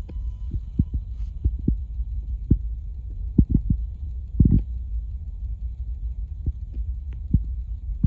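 A steady low rumble with irregular soft thumps every half second or so, like wind buffeting and handling noise on a handheld phone's microphone.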